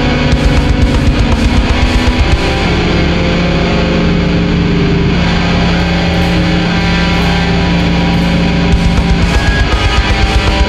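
Death-doom metal: heavily distorted electric guitars holding low chords over drums, with quick runs of rapid drum hits in the first two seconds and again near the end.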